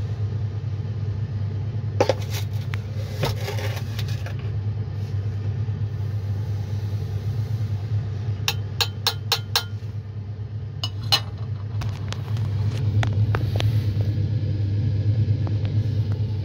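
A metal spoon clinks against the rim of a glass beaker while powder is tipped into the gold solution: single clinks about 2 and 3.5 seconds in, a quick run of about five taps around the middle, and one more a little later. A steady low hum runs underneath.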